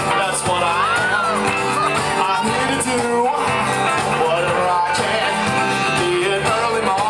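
Live band playing with a steady beat and singing, heard from within the audience in a club.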